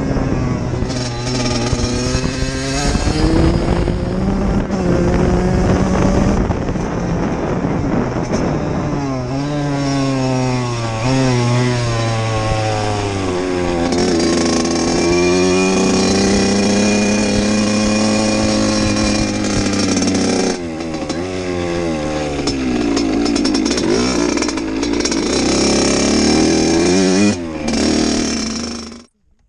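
Kawasaki KX100 two-stroke single-cylinder engine under way on a dirt bike, its pitch repeatedly climbing and then dropping as the rider accelerates and shifts gears. The sound fades out abruptly near the end.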